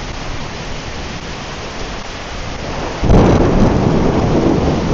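Heavy rain pouring steadily, then a sudden loud thunderclap about three seconds in that rumbles on.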